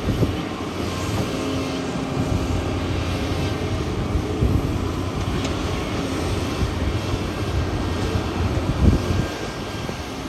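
Kobelco excavator's diesel engine running steadily at working revs, with a short loud thump about nine seconds in.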